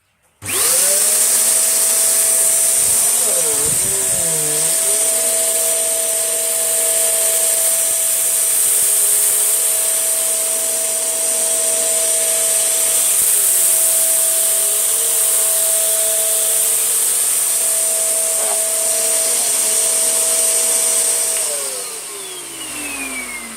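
Tesco own-brand Eco Pet (V.CU12P) vacuum cleaner switched on about half a second in and running at full power while picking up spilled rice and flour, its motor pitch dipping briefly now and then. It is switched off near the end and the motor winds down with a falling whine.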